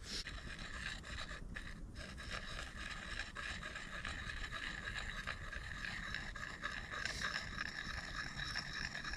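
An axe blade being sharpened: a sharpening tool scraped along the edge in repeated strokes, giving a continuous rasping scrape.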